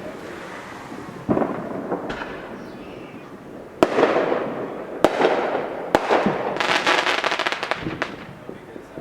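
Fireworks going off: four sharp bangs a second or so apart, each trailing off in an echo, then a rapid crackling string of firecrackers for about a second near the end.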